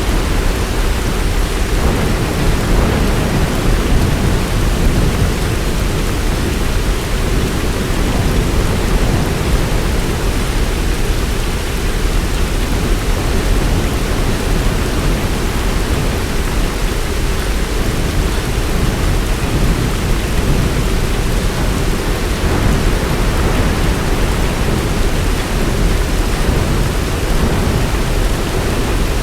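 Heavy rain falling steadily, a dense even downpour with a strong, constant low rumble underneath.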